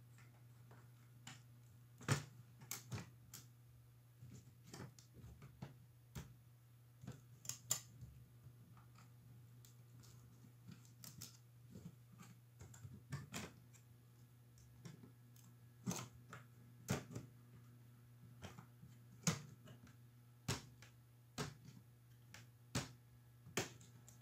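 Irregular light clicks and taps of a screwdriver and fingers working on an opened laptop's motherboard and plastic chassis, some sharper than others, over a faint steady low hum.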